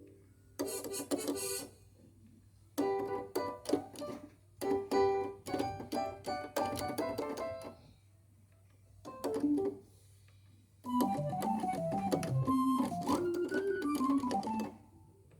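Nord Stage 3 stage keyboard played in short passages of chords and notes in keyboard tones (organ, piano, electric piano), separated by brief pauses, with a longer melodic phrase near the end.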